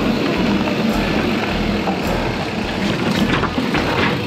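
Mountain bike ridden at speed: a steady rolling rush of tyres and bike rattle, with wind buffeting the action camera's microphone as an irregular low rumble.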